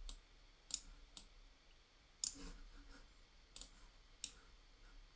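Faint computer mouse clicks: about eight short, irregularly spaced clicks, some in close pairs.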